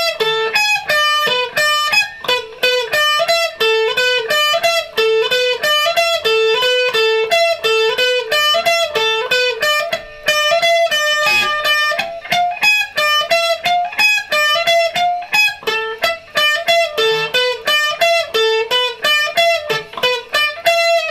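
Electric guitar picking a fast repeating single-note figure, about five notes a second, around a recurring lower note. The figure stops near the end and the last notes ring out as the song finishes.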